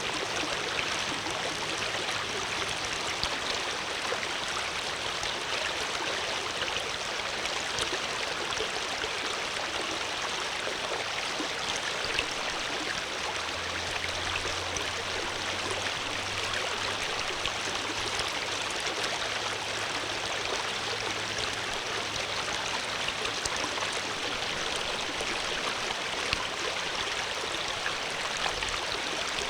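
Water flowing steadily in one even, unbroken rush, with a faint low hum in the middle of the stretch.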